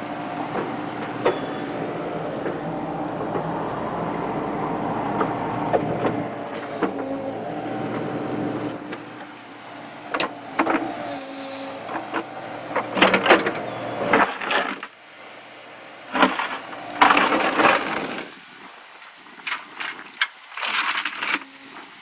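Excavator running with a steady engine and hydraulic hum, which quietens about halfway through. Then its steel bucket scrapes and breaks into hard, rock-like clay at the bottom of a trench in several loud bursts.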